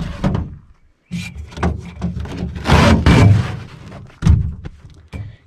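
Pieces of outdoor carpet being pulled up and dragged across a floor panel: a rough scraping rustle in several strokes, with a sharp knock about four seconds in.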